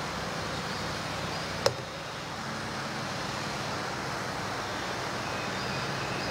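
Steady room hiss with a faint low hum, broken once by a single sharp click about a second and a half in.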